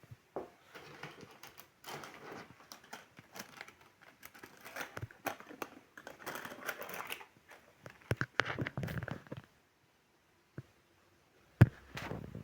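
Small objects being handled and set down while a dressing table is tidied: a string of light clicks, taps and rustling, then a pause and one sharp knock near the end.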